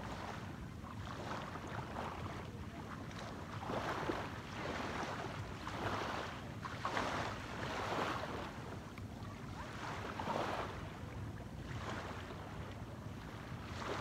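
Sea waves washing in and wind on the microphone, in swells every second or two, over a steady low rumble.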